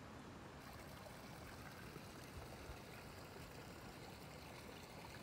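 Near silence: a faint, even outdoor background hiss with no distinct sounds.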